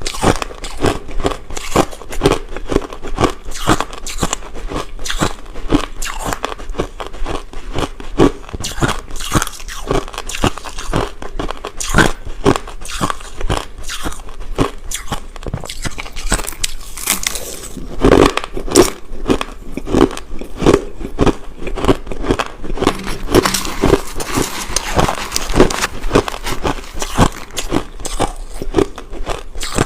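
Crushed ice being bitten and chewed: a steady run of irregular crunches and cracks, with a few louder bites about two thirds of the way through.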